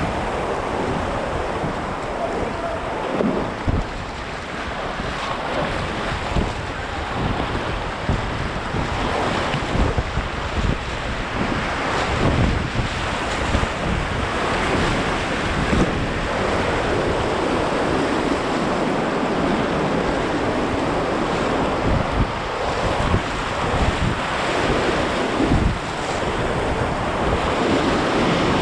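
Whitewater of a river rapid rushing steadily, with wind buffeting the microphone in irregular low thumps.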